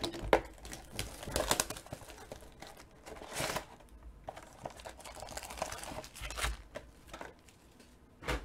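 Plastic wrapping and foil trading-card packs crinkling and rustling in the hands as the packs are taken out of a hobby box, with irregular rustles and a few sharp clicks.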